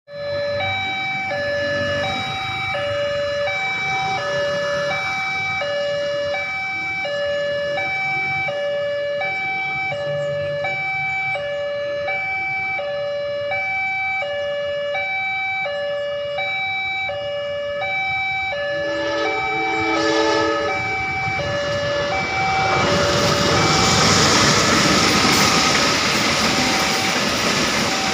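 Railroad level crossing's electronic warning alarm repeating a two-note signal to warn of an oncoming train. A horn sounds briefly about 19 seconds in. From about 23 seconds a passenger train's rumble grows loud as it reaches the crossing.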